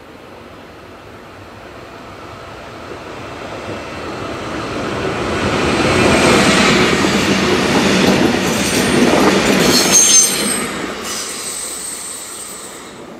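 Stadler FLIRT electric multiple unit passing on a tight curve. Its running noise swells as it approaches, with high-pitched wheel squeal from the curve about ten seconds in, then dies away as it leaves.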